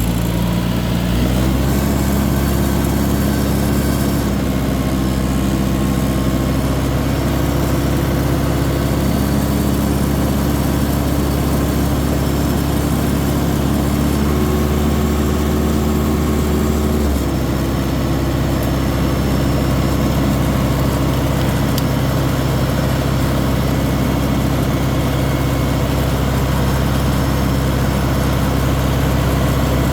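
Tractor engine running steadily, with its pitch changing about a second in and again around seventeen seconds in.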